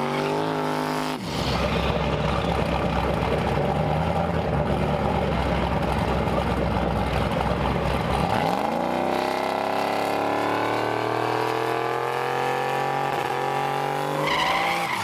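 Drag-race engines running at high revs during burnouts: a loud, dense, steady noise for several seconds, then an engine note that climbs in pitch about eight seconds in and holds high.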